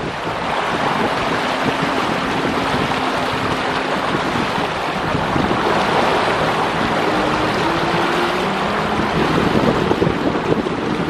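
Boat engines running and water rushing along the hulls, with wind on the microphone; a faint engine hum shifts in pitch now and then.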